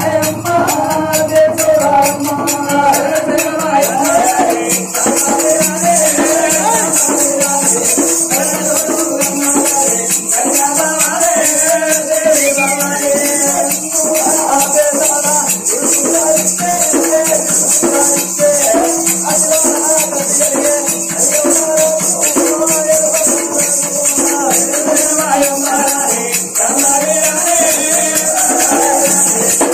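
Oggu Katha folk music: male voices singing over a continuous bright jingling of rattles or hand cymbals and a steady drum beat.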